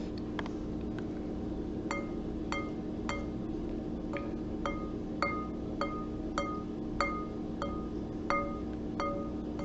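Light, steady tapping on a small glass object, about two taps a second, each tap ringing briefly with the same clear tone. A low steady hum sits underneath.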